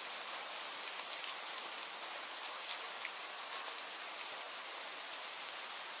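Steady hiss of falling water with scattered light ticks of drops.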